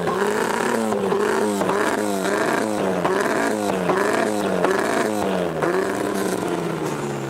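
Classic Mini's four-cylinder A-series engine revved hard again and again through a loud, lightly silenced exhaust, the pitch climbing and dropping in quick blips a little under twice a second. Near the end the revs fall away toward idle.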